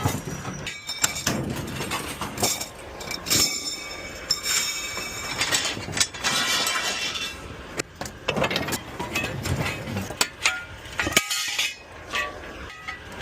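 Scrap metal clanking and crashing as pieces are thrown off a trailer onto a pile: a run of irregular metal impacts, some ringing on.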